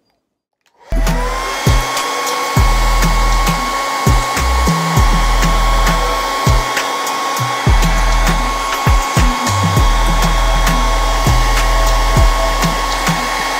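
Handheld hair dryer switched on about a second in: its motor whine climbs and settles to a steady pitch over the loud rush of air, which runs unbroken from there on.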